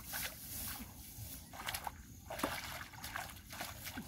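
Hands and legs sloshing in shallow muddy water among grass, making irregular small splashes while groping for fish by hand.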